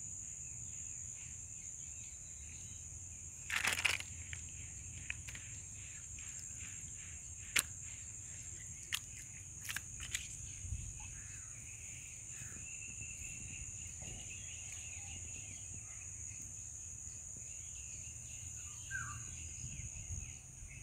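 Steady high-pitched insect chorus, with a few sharp clicks and a brief rustle, the loudest about four seconds in.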